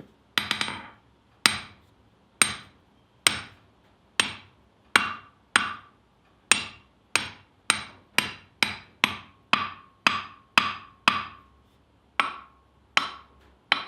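Hammer striking a 400 lb Kohlswa anvil about twenty times, testing its ring after it has been strapped tightly to its base. Each blow gives a sharp clang with a short, damped ring. The strokes come faster in the middle. A few later blows leave a longer ringing note, and the anvil still rings most out on the horn.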